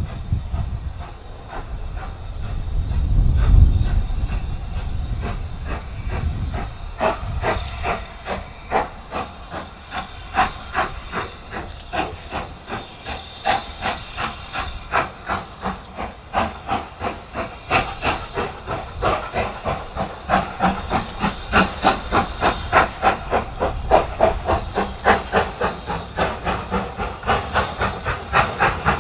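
Steam locomotive working hard as it approaches, its chimney exhaust beating evenly about two to three times a second and growing steadily louder from about seven seconds in. A low rumble comes first, in the opening seconds.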